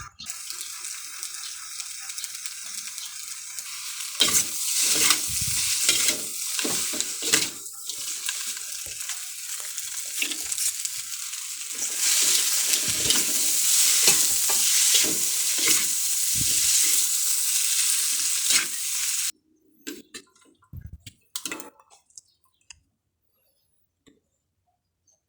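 Fried noodles sizzling steadily in a hot pan while being stirred and tossed, with repeated scraping and knocking strokes. The sizzle cuts off suddenly about three-quarters of the way through, leaving only a few faint clicks.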